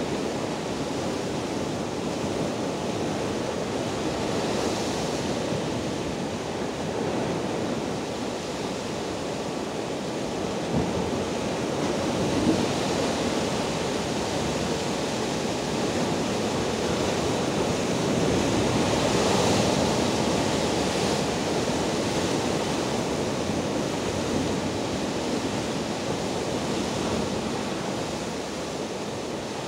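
Rough sea waves breaking over and washing around shore rocks: a steady rush of surf that swells louder about two-thirds of the way through.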